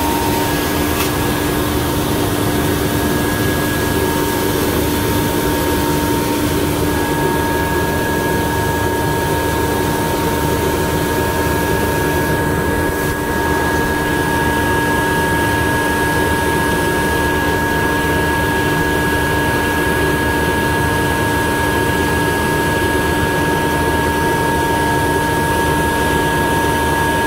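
Jonsen SGP1000 deburring and finishing machine running steadily: a constant mechanical rush and hum with a few steady whining tones held throughout.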